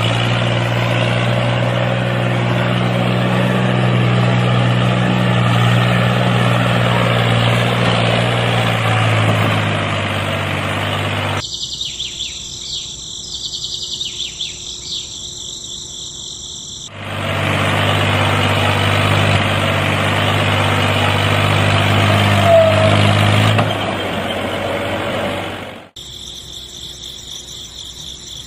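Small DC motors of miniature toy tractors running steadily, a low hum with hiss, in two long stretches. Between the stretches and near the end the running stops and only faint high-pitched chirping is heard.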